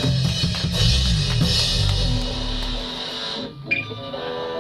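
Live rock band with electric guitar and drum kit playing a loud, noisy burst, then stopping abruptly about three and a half seconds in, leaving a steady held amplified tone ringing.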